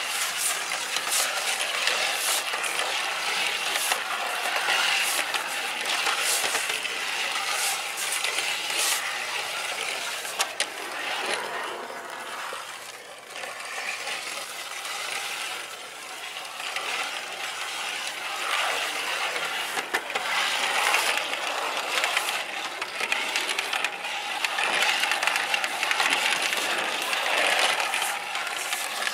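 Small plastic wheels of a Playmobil toy bicycle and its child trailer rolling and rattling over a hard floor, with many small clicks. It goes quieter for a few seconds around the middle.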